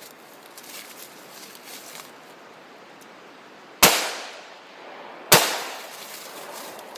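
Two shots from a double-barrelled 12-gauge shotgun, about a second and a half apart, each one echoing away.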